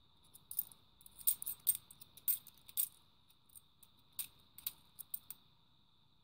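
A stack of cupro-nickel 50p coins being thumbed through in the hand, the coins clicking and clinking against each other in quick clusters for the first few seconds, then a handful of scattered clicks.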